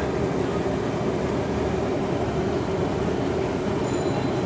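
Potato fries deep-frying in a wok of hot oil over a gas burner: a steady sizzling roar. A light metal clink of the wire strainer comes near the end.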